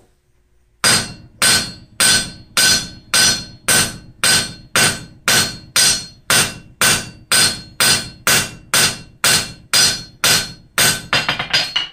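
Blacksmith's hand hammer striking a steel block held in tongs on an anvil: a steady run of ringing blows, nearly two a second, beginning about a second in and ending in a quick flurry of lighter taps. The blows forge matching facets onto the block's corners.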